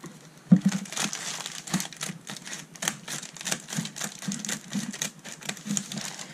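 Scissors cutting through a plastic bubble mailer: a run of crisp snips and crinkling plastic, with a sharp knock about half a second in.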